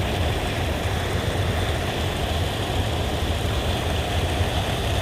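Steady rush of river water pouring over a concrete weir, an even low rumble with hiss above it and no change in strength.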